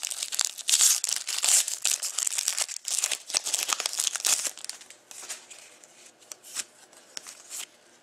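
Foil wrapper of a 2013-14 Panini Crown Royale hockey card pack being torn open and crinkled by hand. After about four and a half seconds it gives way to quieter scattered rustles and clicks.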